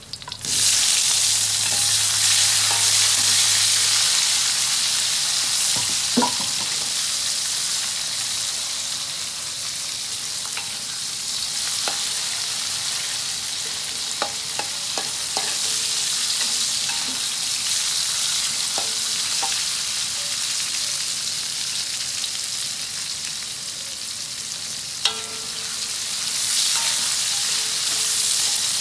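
Chopped shallots, garlic, tomato and chili frying in hot oil in a steel wok: a loud, steady sizzle that starts suddenly about half a second in. A metal spatula stirring against the wok adds occasional short taps and scrapes.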